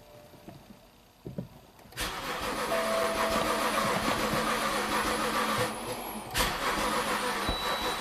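Starter motor cranking the 2009 BMW 328i's inline-six engine, which turns over but never fires: a crank no-start. Cranking begins about two seconds in, drops away briefly past the middle, then picks up again.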